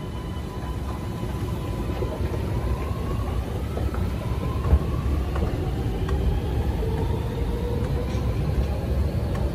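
Steady low rumble under faint electric whines that rise slowly in pitch, typical of a Sydney Metro train accelerating away from the station platform, with one short knock about five seconds in.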